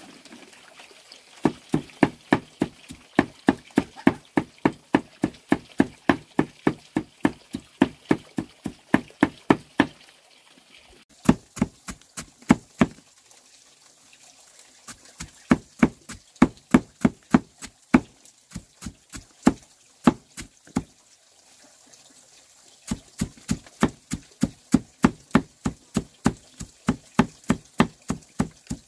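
Rapid, regular knocking strikes, about three to four a second, coming in runs of several seconds with short pauses between them, like chopping or hammering.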